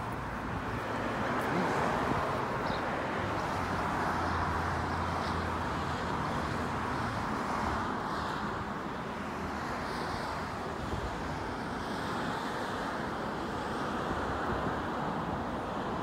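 Steady road traffic noise in the background, an even rush with a low hum underneath and no distinct events.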